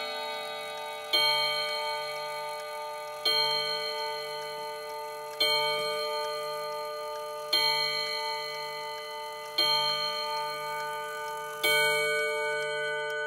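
Reguladora wall clock with its original Portuguese-made movement striking six o'clock on its chime rods: six slow strokes about two seconds apart, each ringing on and fading. The movement ticks faintly beneath.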